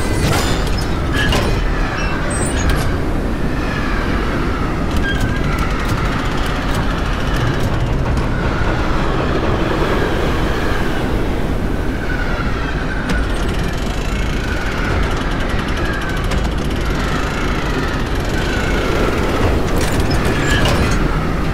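Roller coaster train running along its steel track: a loud, steady rumble of the wheels, with a short falling tone every couple of seconds and a few sharp clicks near the start and near the end.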